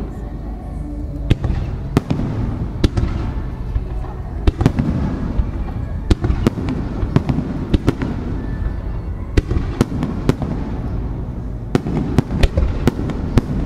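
Aerial firework shells launching and bursting at close range: a string of about twenty sharp bangs at irregular intervals over a continuous low rumble.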